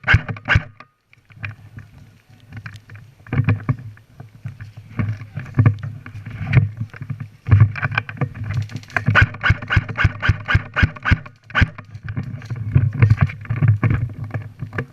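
Irregular rustling and soft thumps, several a second, close to the microphone, with a brief lull about a second in.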